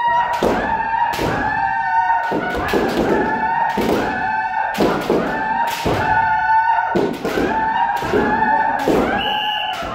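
Kendo practitioners shouting long, high-pitched kiai yells during a timed striking drill. Sharp knocks of bamboo shinai strikes and stamping feet land irregularly, about two a second.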